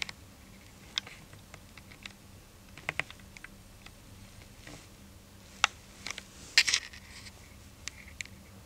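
Handling noise on a Canon EOS 5D camera: irregular small clicks and scratches, with a cluster of louder clicks a little past the middle.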